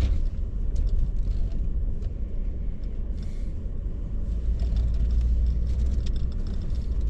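Steady low rumble of a truck driving slowly, heard from inside the cab, with a few faint ticks and rattles.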